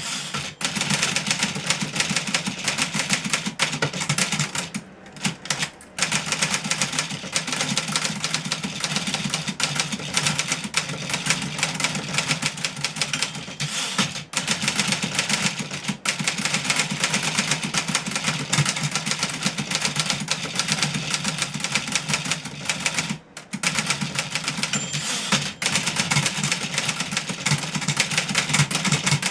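Fully serviced 1963 Remington Model 11 portable typewriter being typed on fast and steadily, a dense run of key and typebar strikes with a few brief pauses.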